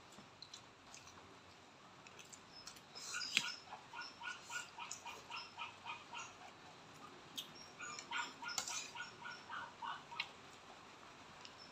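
An animal's short, high-pitched whining calls, repeated about two or three a second from about three seconds in, with a few light clicks among them.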